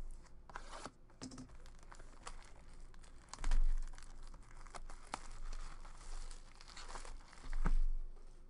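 Foil wrapper of a pack of trading cards crinkling and tearing as it is opened by hand, with crackling rustles throughout. Two dull thumps, about three and a half seconds in and near the end, are the loudest sounds.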